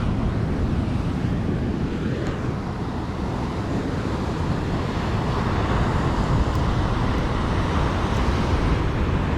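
Wind buffeting the microphone over the wash of ocean surf, a steady rumbling noise that grows a little louder in the second half.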